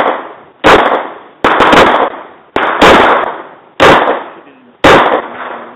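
Semi-automatic pistol firing five shots at an uneven pace, roughly one a second, each shot ringing out briefly. A voice is faintly heard near the end.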